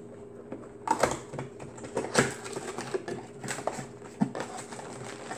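Cardboard product box being opened by hand: flaps pulled open and the contents handled, with scattered scrapes, rustles and light knocks.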